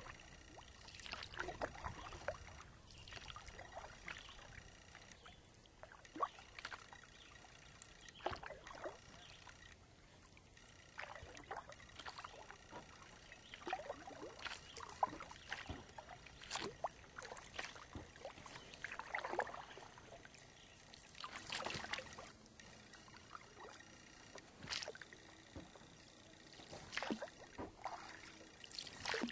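Kayak paddle strokes in lake water: the blades dip in and lift out with small splashes and drips, irregularly every second or two.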